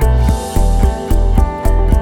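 Background music with a steady beat of deep bass pulses, about two a second, under sustained melodic tones.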